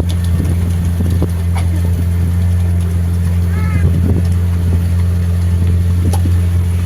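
Tourist boat's motor running with a steady low drone, with a brief faint voice about halfway through.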